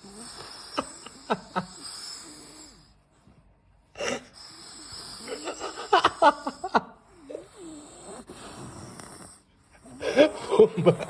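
A sleeping pit bull snoring heavily: several long, wheezing breaths with sharp snorting clicks, separated by short pauses.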